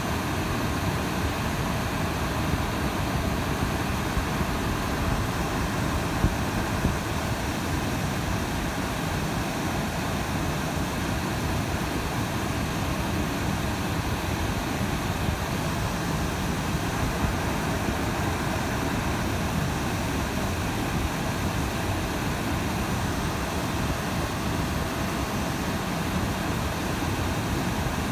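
Steady in-cabin road noise of a car driving on a slushy, snow-covered highway: a constant low rushing of tyres and engine, with a few brief small knocks.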